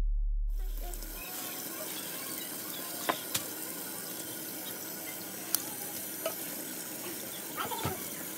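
Tap water running steadily into a stainless steel sink and over raw chicken, with a few sharp snips of kitchen shears cutting the chicken.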